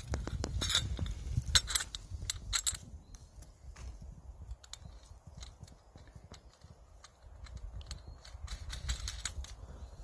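Metal clicks and clinks of a folding bucksaw being put together by hand: aluminium tube frame, steel tension rod and saw blade fitted and the rod's knob screwed tight. A quick run of clicks comes in the first three seconds and sparser ones follow, over wind rumbling on the microphone.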